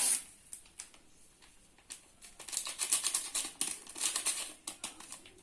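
Small paper baking-powder sachet being opened and emptied into the batter: a quick run of crisp crinkling rustles and small taps in the second half.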